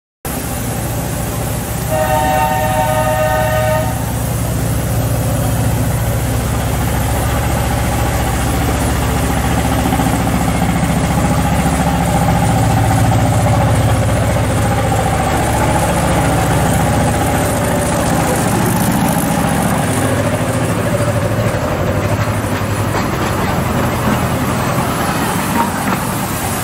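Narrow-gauge locomotive giving one horn or whistle blast of about two seconds, a couple of seconds in, then running on with a steady low rumble that swells and eases.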